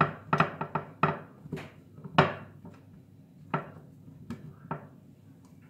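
Chunks of raw pumpkin being set into a glass baking dish, knocking against the glass and each other. A quick run of knocks comes in the first two seconds, the loudest a little after two seconds in, then a few scattered knocks.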